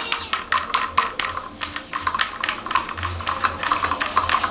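Rapid, irregular light clicks and taps, several a second, like typing.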